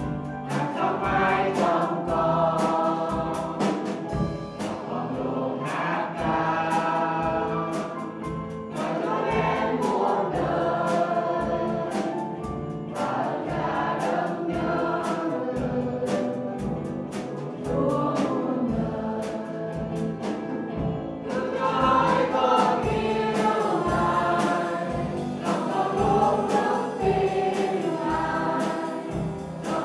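Live worship song: voices singing over a band, with a drum kit keeping a steady beat.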